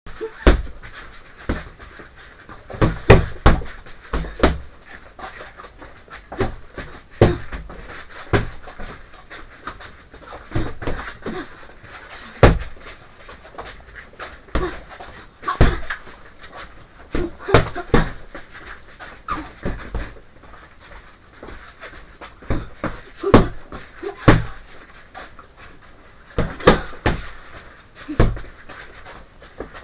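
Boxing gloves punching a hand-held padded body bag: irregular flurries of deep thuds, often two to four in quick succession, with the boxer's hard breathing between and with the punches.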